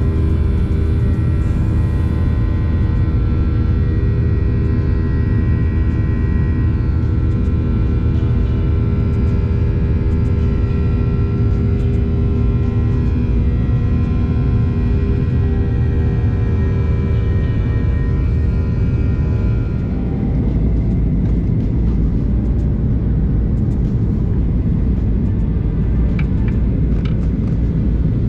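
Jet airliner cabin noise by a window: steady engine rumble and airflow with a set of steady whining engine tones during the climb. About twenty seconds in the sound changes abruptly and the whine drops away, leaving a plainer, steady rumble.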